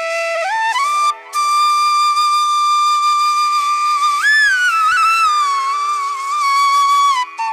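Instrumental music led by a flute-like wind melody: long held notes that glide up and down between pitches, with a short break about a second in.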